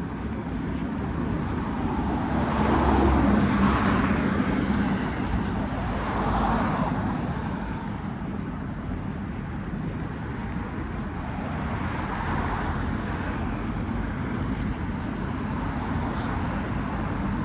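Street traffic: a steady rumble of cars on the road, with a vehicle passing close about three seconds in and another about six seconds in.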